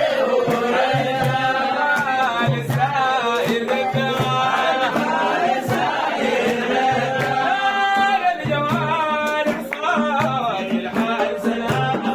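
Sudanese madih, a devotional praise song for the Prophet, sung by voices over a regular drum beat.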